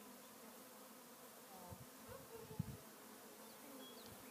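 A swarm of honeybees buzzing faintly and steadily around an open bee package, with a couple of soft low thumps about a second and a half and two and a half seconds in.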